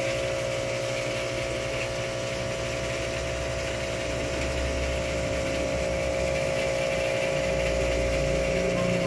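Aquarium filter pump humming steadily, a constant motor drone with a low rumble underneath.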